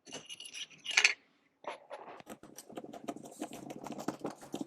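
Small fitting parts handled close up while a mounting plate is screwed on: a rustling scrape with a sharp, loud scratch about a second in, then a run of rapid small clicks and scratches.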